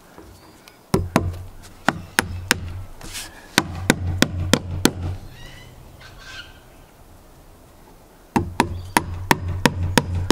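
Hammer driving nails into a timber deck board: a run of sharp blows starting about a second in, and a second quick run near the end.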